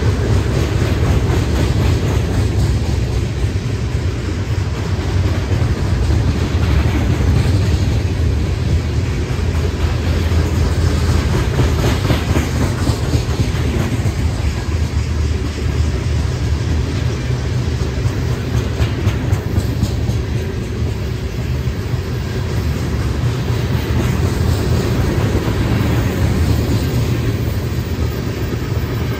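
Freight train rolling past: a steady, loud rumble of steel wheels on rail, with faint repeated clicks.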